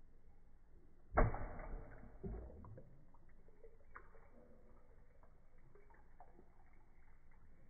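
Water splashing as a grouper strikes at krill at the surface of a saltwater aquarium, heard slowed down in slow-motion playback. There is one sharp splash about a second in and a smaller one about a second later, then faint drips and clicks from the settling water.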